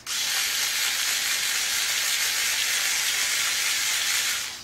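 Handheld pistol-grip power tool spinning a magnet on its chuck, running steadily with an even, high hissing whirr that cuts off at the very end.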